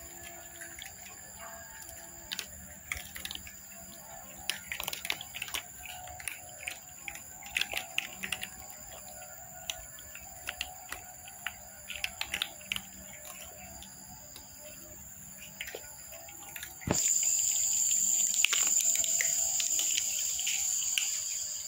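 Cats crunching dry kibble: quick, irregular crisp crackles of chewing over a steady high-pitched whine. About seventeen seconds in, a louder rushing noise starts suddenly.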